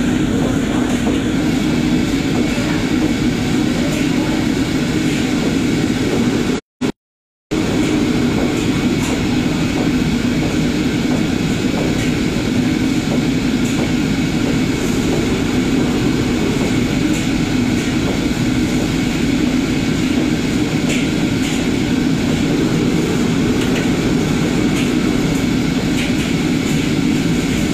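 Gas wok burners and the extraction hood of a commercial kitchen running with a steady, loud rushing noise, with faint clinks of wok utensils. The sound cuts out completely for about a second near seven seconds in.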